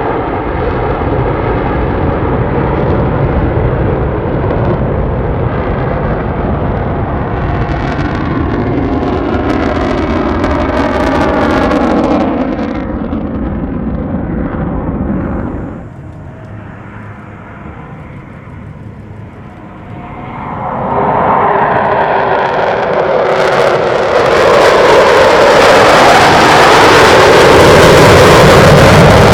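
Blue Angels F/A-18 Super Hornet jet noise. One pass sweeps by and fades away a little past halfway, then the sound comes back and builds to its loudest near the end as another jet approaches.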